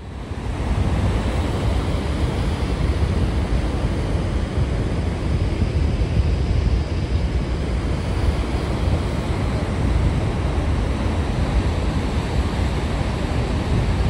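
The steady roar of water pouring over Niagara's American Falls: a constant, deep rushing noise that swells up within the first second.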